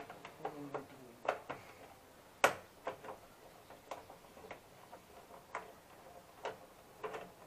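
Light, irregular clicks and taps of a screwdriver prying in the gap of a Honda Click 150's plastic body panel, roughly one a second, with one sharper snap about two and a half seconds in.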